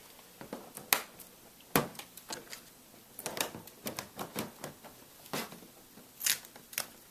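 Plastic laptop parts being handled and fitted together: a scatter of small clicks and knocks, the sharpest about one and two seconds in, as the screen cover is put back onto the laptop lid.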